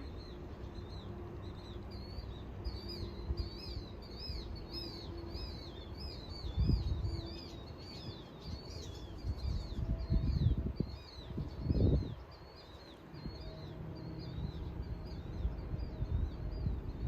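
A bird chirping over and over in short high notes, several a second, fading out near the end. Underneath is a low rumble that swells louder three times, at about seven, ten and twelve seconds in.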